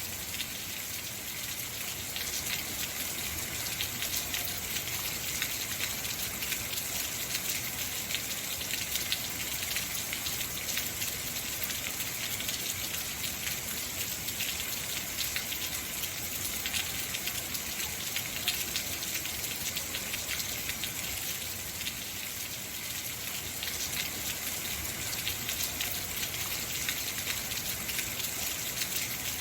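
Heavy rain falling steadily, with dense drop patter on hard surfaces.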